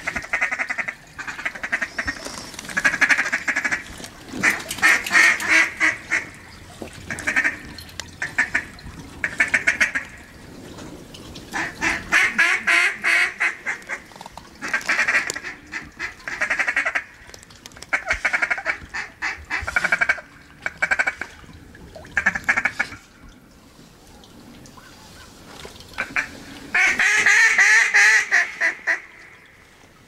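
Duck quacking in repeated runs of rapid quacks lasting a second or two each, with a longer, louder run near the end.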